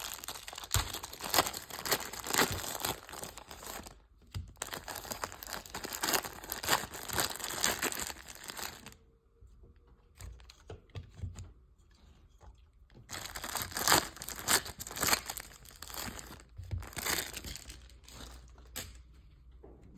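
Plastic wrapper of a baseball card rack pack being torn open and crinkled by hand, in three long spells of crackling with a quieter stretch of a few soft rustles in the middle.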